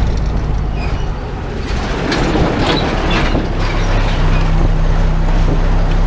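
Inside a MAN truck cab on a gravel road: the truck's steady low engine drone, with a rush of noise swelling about two seconds in and fading by four as a loaded logging truck passes the other way.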